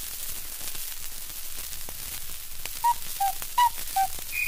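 Surface hiss and crackle of a shellac 78 rpm record. About three seconds in, four short whistle-like notes sound, alternating high and low, and a higher held tone starts near the end.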